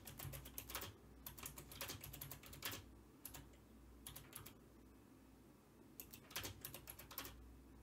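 Computer keyboard typing, faint, in several quick runs of keystrokes with pauses between them.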